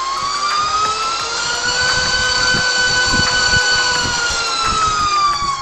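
HGLRC Aeolus 2306.5 2550KV brushless motor spinning a 5-inch Ethix Watermelon S3 three-blade prop on a thrust stand during a throttle ramp. Its whine rises in pitch over about two seconds, holds at full throttle, then starts to fall near the end as the throttle comes back down.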